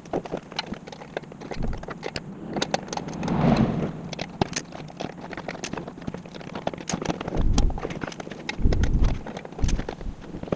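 Irregular metallic clicks, clinks and knocks of hand wrenches and exhaust pipe sections being handled while a car's catback exhaust is worked on, with a few louder low thumps.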